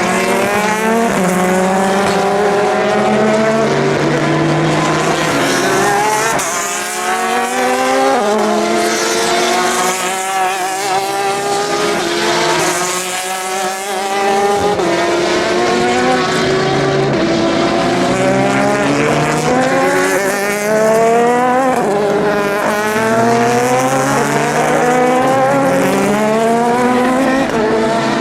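Endurance racing cars at speed, several engines overlapping, each rising in pitch and dropping back again and again as the drivers shift up through the gears.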